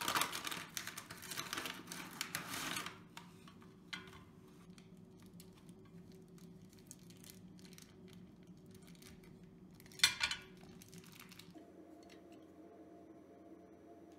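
Kitchen things being handled: about three seconds of rustling and clattering, a single click, then a sharp knock or clink about ten seconds in, over a low steady hum.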